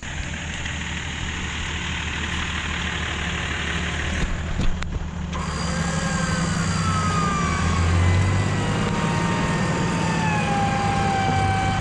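A four-wheel-drive's engine running steadily, its note swelling a little about eight seconds in. A high whine slides slowly down in pitch over the second half, and there is a short knock near the middle.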